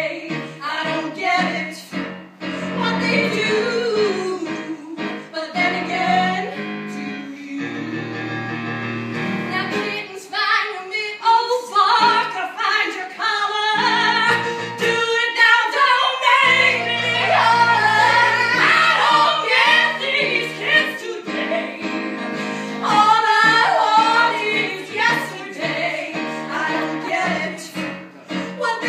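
Music with a woman singing a melody over sustained low accompaniment.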